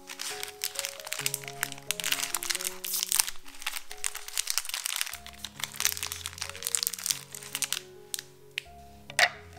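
Plastic cookie wrappers crinkling and crackling as hands tear open Oreo packets, over light background music. Near the end the crinkling stops and there is a single sharp knock.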